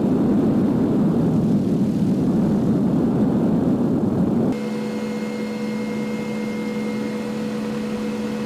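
MD 530F light helicopter in flight: a steady rumble of rotor and turbine engine. About halfway through it cuts suddenly to the steady humming drone heard inside the cockpit, with a fainter high tone over it.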